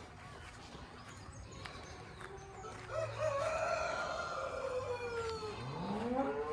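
A rooster crows once, a long drawn-out call starting about three seconds in and sinking slowly in pitch. Near the end a cow begins to moo.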